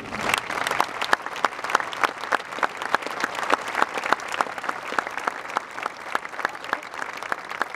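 Large crowd applauding, with distinct sharp claps close by standing out from the steady clapping of the audience.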